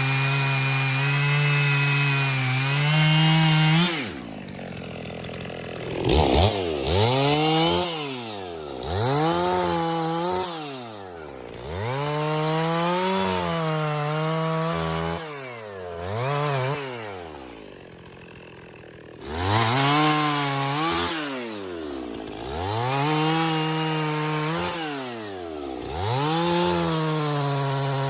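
Two-stroke chainsaw bucking black walnut. It runs steady under load at first, then is revved up and down over and over in short bursts and briefly drops to idle about two-thirds of the way through.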